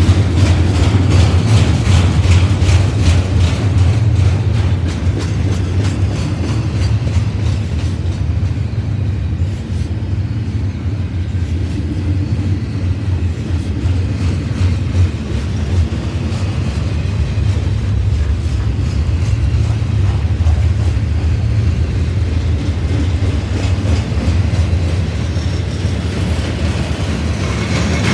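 Double-stack intermodal well cars loaded with shipping containers rolling past at close range: a steady low rumble of steel wheels on rail with repeated clicking as the wheels pass over the rails. The clicking is heavier in the first few seconds and again near the end.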